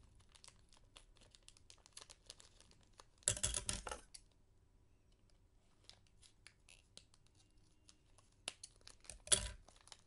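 Small clear plastic bag crinkling as it is handled and cut open with scissors, with many light crackles. There is a louder burst of crinkling about three seconds in and a sharp crackle near the end.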